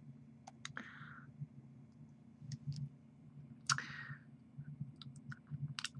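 Faint scattered clicks and small taps over a low steady hum, with two brief soft rustling sounds, one about a second in and one just before four seconds.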